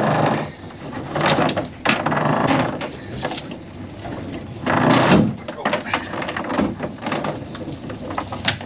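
Boat anchor chain hauled up by hand over the gunwale, its steel links rattling and clinking in irregular surges as each pull comes in and the chain drops into a pile, with a few sharp clanks.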